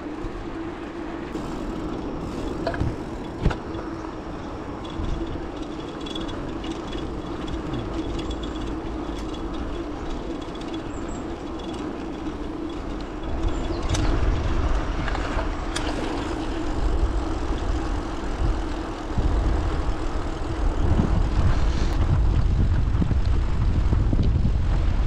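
A bicycle rolling along a paved path: tyres running on the tarmac and the bike rattling, with a steady hum. A heavy low rumble, like wind buffeting the microphone, comes in about halfway through and stays louder to the end. There is a sharp knock a few seconds in, and a few lighter clicks later.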